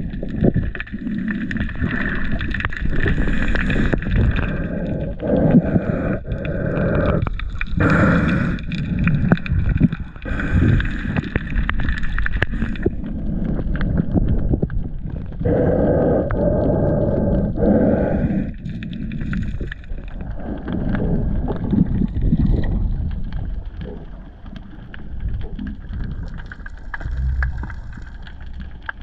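Muffled underwater sloshing and rumbling picked up by a camera in a waterproof housing, with scattered knocks.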